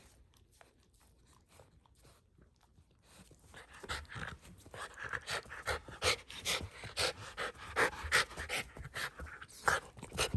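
A Shiba Inu panting in quick, rhythmic breaths, starting about a third of the way in and growing louder.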